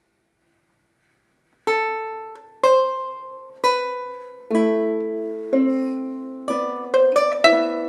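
Lute and two harps playing a slow fifteenth-century chanson, plucked notes after about a second and a half of silence. Single notes come about once a second at first, then more voices join and the notes come faster, each ringing and fading.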